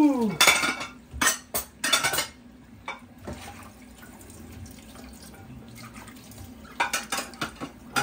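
Ceramic plates clattering against each other and a plastic dish drying rack as they are rinsed and set in place. The clatter comes in a quick run over the first couple of seconds and again near the end, with a tap running faintly in between.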